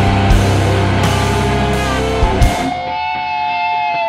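Recorded rock band music with guitar, bass and drums playing full and loud. About two and a half seconds in, the band drops out and a held, ringing guitar note is left sounding on its own.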